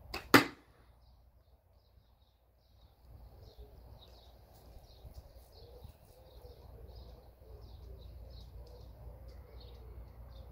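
A single Milbro catapult shot: a faint snap, then a loud sharp crack about a third of a second in. Small birds then chirp repeatedly over a low wind rumble.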